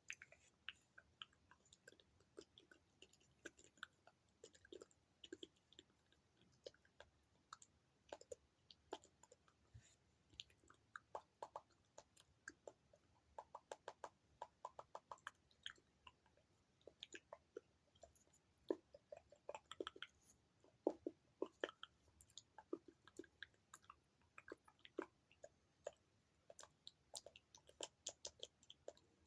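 Close-miked mouth sounds: wet tongue and lip clicks and smacks, coming in quick, irregular runs.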